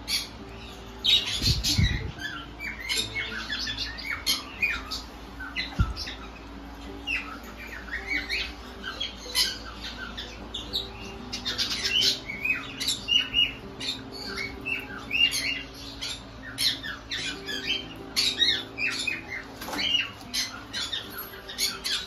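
Caged parrots, including young conures, squawking and chirping almost without pause in many short, sharp calls. A low bump comes about two seconds in.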